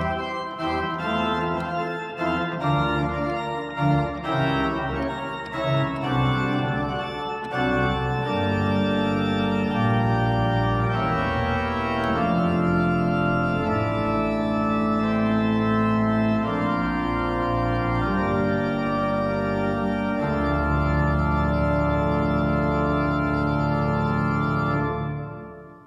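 Two-manual church organ playing a piece to its close: quick-moving notes for the first several seconds, then broad held chords over a deep bass. The last long chord is released near the end and dies away.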